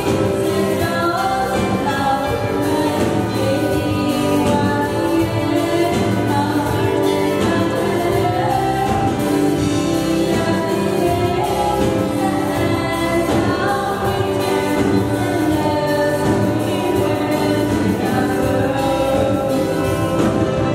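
A woman singing a song into a handheld microphone, amplified, over steady musical accompaniment.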